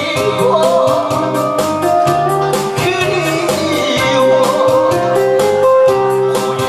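A man singing into a handheld microphone over an amplified backing track with a steady drum beat.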